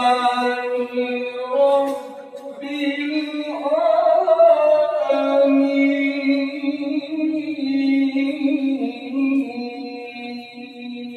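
A male qari recites the Quran in the melodic tilawah style, amplified through a microphone. He holds long, ornamented notes, pausing briefly about two seconds in before the melody rises again.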